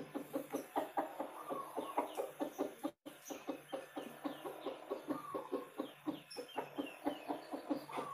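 Zebra dove (Javanese perkutut) cooing in a rapid run of short, clipped notes, about four to five a second, with a brief break about three seconds in.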